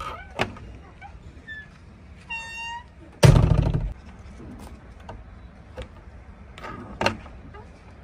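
Cab door of a JCB 3DX backhoe loader being worked open: a latch click near the start and a sharp knock near the end. A short electronic beep sounds about two seconds in, followed by a loud, rough burst of noise lasting under a second, all over a steady low hum.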